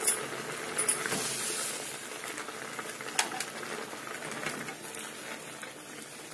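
Water boiling in a steel kadai around pieces of snake gourd and potato, bubbling steadily, with a few sharp clicks of a spatula against the pan as the pieces are scooped out into a bowl.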